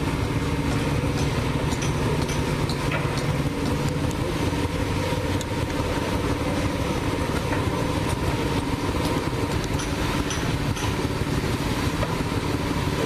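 Petrol engine of a construction material hoist idling steadily, its pitch even throughout, with a few faint clacks as concrete blocks are loaded into the hoist cage.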